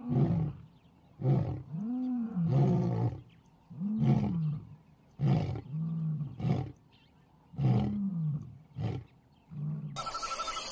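A large animal calling in a rhythmic series of deep grunts and moaning roars, about one a second, some rising and falling in pitch.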